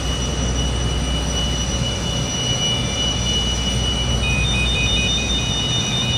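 Boeing 747 ground crew call horn sounding at the nose gear: a rapid pulsing ring like a phone, starting about four seconds in. It sounds over the steady whine and rumble of the running APU and air-conditioning packs.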